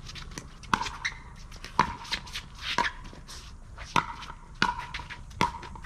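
Pickleball paddles striking a plastic pickleball back and forth in a rally: sharp hollow pops about once a second, six in all, with fainter clicks between them.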